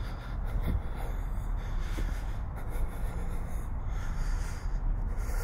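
Close, heavy breathing of the person carrying the camera, picked up by its built-in microphone in repeated in-and-out swells over a steady low rumble.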